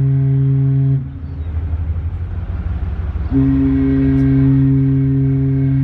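A cruise ship's deep horn sounding two long blasts. The first ends about a second in, and the second starts after a gap of about two seconds filled by low rumble.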